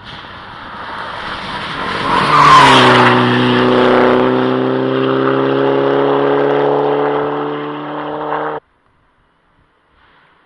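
Rally car at speed, engine at high revs growing louder to a peak with a burst of tyre noise, then a steady, slightly falling engine note that cuts off abruptly near the end.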